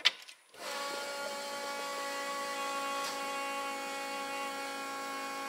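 A click, then an electric fuel pump hums steadily for about five seconds at key-on, priming the EFI fuel system before the engine is cranked, and cuts off abruptly.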